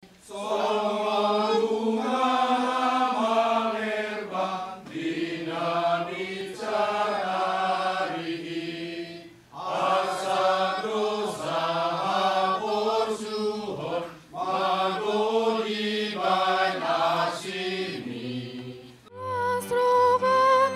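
A choir singing in harmony, in phrases of a few seconds with short breaks between them. Near the end the singing gives way to held instrumental notes.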